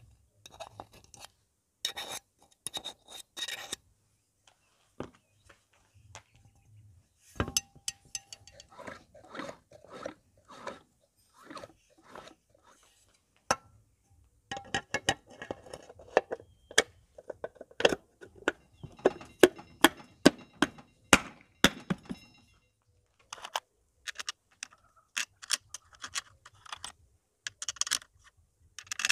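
Hand tools and metal parts clinking, scraping and knocking against an aluminium scooter engine casing as it is assembled: an irregular run of sharp clicks and scrapes with short pauses, busiest and loudest about halfway through.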